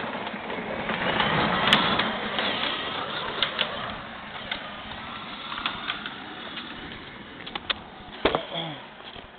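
Handling noise from a small camera being moved about close to the ground: rustling and scraping with scattered clicks and knocks. A sharper pair of knocks comes near the end, and the noise then dies down as the camera settles.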